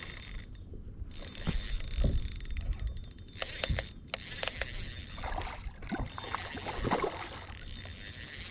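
Fishing reel cranked in short spells while a hooked bass is played toward the boat, its gearing whirring and clicking and stopping several times, over a low rumble.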